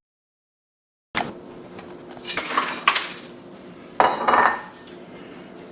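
Dishes and cutlery clattering in a few loud bursts, after about a second of dead silence.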